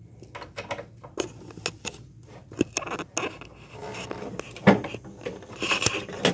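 Irregular light clicks, knocks and scrapes of a data logger module and its plastic enclosure being handled as the module is fitted into the enclosure. The loudest knock comes a little past the middle.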